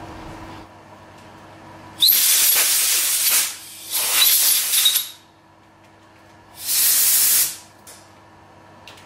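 Compressed-air blow gun blowing chips out of freshly tapped holes: three hissing blasts, two of about a second and a half each in quick succession, then a shorter one about seven seconds in.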